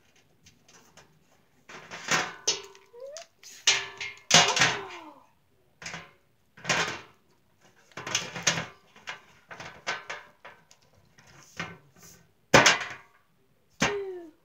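Plastic wrestling action figures slammed and knocked against each other and a folding chair seat, in a string of short clattering bangs, some with a brief falling tone after them.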